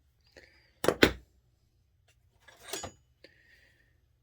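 Metal hand tools (wrenches and a ratchet) clinking and knocking as they are handled and set down: a few separate sharp clinks, the loudest two close together about a second in.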